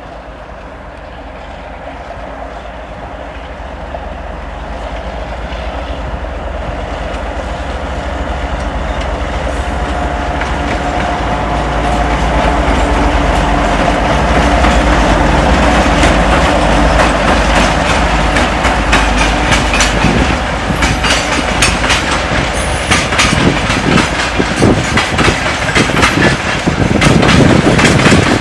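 A 2TE10M diesel locomotive's train moving off, its engine rumble and wheel clatter growing steadily louder as it comes nearer. Clicks over the rail joints thicken over the second half and are loudest near the end.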